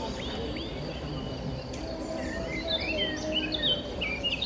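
Small birds chirping, with a quick run of short high chirps starting about two and a half seconds in, over steady background noise.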